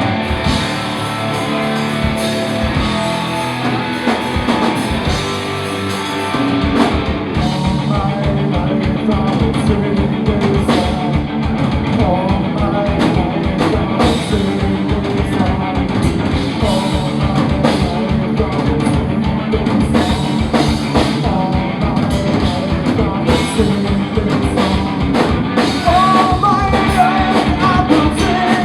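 Live punk rock band playing: electric guitars and drum kit with a sung vocal. The drums come in fully about six seconds in, and the singing starts soon after.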